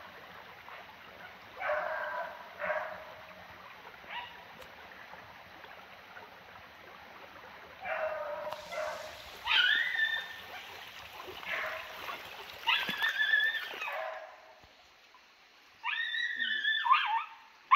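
Hunting hounds baying on the scent of a paca, a string of drawn-out, pitched bays. They come sparsely at first, then more often and louder from about eight seconds in.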